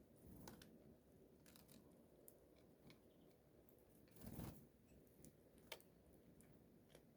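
Faint, scattered taps and crunches of small birds pecking and cracking seed at a feeder, with one louder soft thump about four seconds in.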